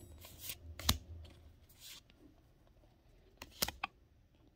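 Light handling sounds at close range: a few sharp clicks and short rustles, with a quick cluster of clicks about three and a half seconds in.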